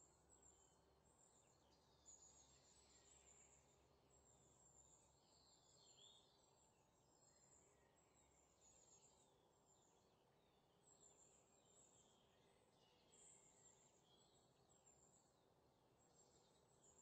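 Near silence, with very faint high-pitched chirps scattered through it.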